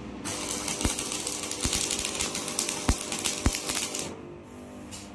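Stick (manual arc) welding on a steel window grill: the arc crackles and sizzles, with scattered sharp pops, for about four seconds, then stops suddenly; a brief crackle of the arc comes again near the end.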